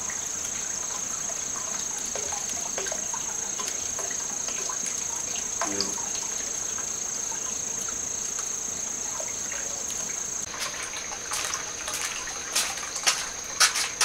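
Steady high-pitched chirring of insects over a wood fire crackling faintly in the brick firebox of a wood-fired bath. About ten seconds in the sound changes abruptly, and a run of sharp clicks and knocks follows.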